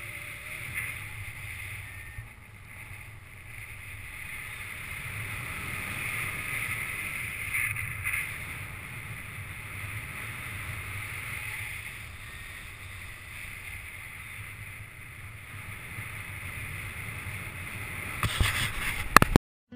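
Wind rushing over the camera microphone of a paraglider in flight: a steady rushing noise that swells and eases, with a few sharp knocks near the end before it cuts off suddenly.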